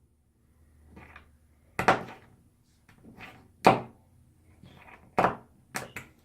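About six sharp knocks and thunks at uneven intervals, the loudest about two seconds and about three and a half seconds in: hard objects striking during work on towel-rack hardware at a bathroom wall.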